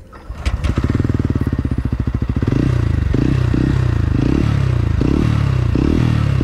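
TVS Ronin 225's single-cylinder engine is started: it catches under a second in and idles with an even pulsing beat. From about two and a half seconds in it is given repeated quick throttle blips, the revs rising and dropping back each time.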